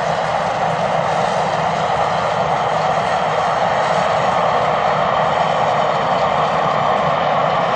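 Peppercorn A1 Pacific steam locomotive 60163 Tornado and its carriages passing at speed. The sound is a loud, steady, even rushing noise with no separate exhaust beats.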